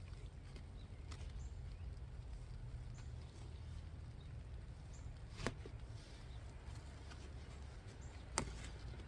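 Soil being dug and scooped out of a potato grow bag into a container: faint scrapes and rustles, with sharp clacks about five and a half and eight and a half seconds in, the second one the loudest. A low steady rumble runs underneath.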